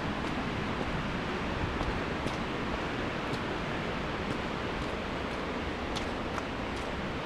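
Steady rush of fast-flowing river water and waterfall, with faint light ticks about once a second.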